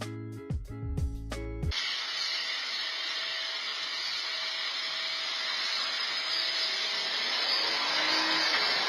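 Plucked guitar music that cuts off abruptly, followed by the steady hiss of a garden hose spraying water.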